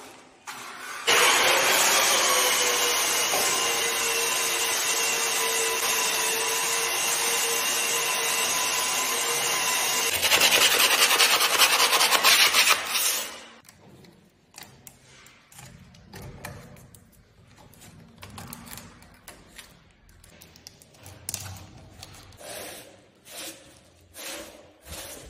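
Electric long-handled drywall sander with a round pad and P80 sanding disc starts about a second in and runs with a steady whine, turning louder and harsher near the ten-second mark before cutting off suddenly. Then a push broom sweeps a tiled floor in short, quieter scratchy strokes.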